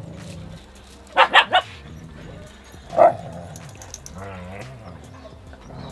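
A dog barking three times in quick succession about a second in, then once more about two seconds later, followed by a short wavering whine.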